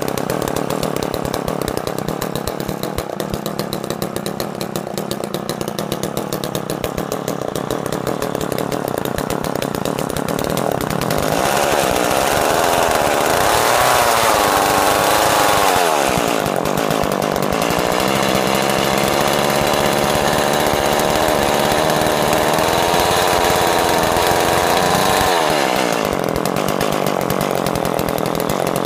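Ice Master gas ice auger's small two-stroke engine running steadily at idle, then revved up twice, each time holding high for several seconds before dropping back to idle.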